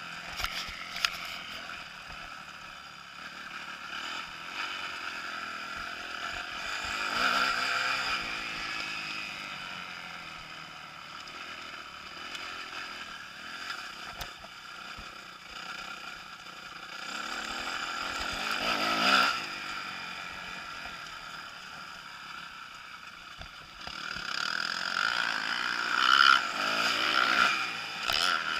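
Kawasaki KX250F motocross bike's single-cylinder four-stroke engine under way, the throttle opening and closing, with three louder surges of revs, about a quarter of the way in, about two-thirds in and near the end.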